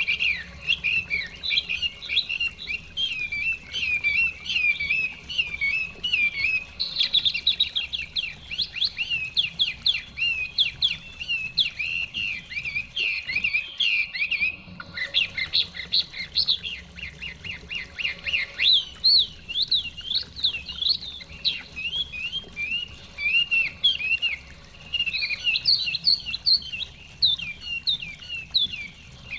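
Chinese hwamei (melodious laughingthrush) singing a long, varied song of rapid whistled phrases, sweeping notes and trills, with barely a pause.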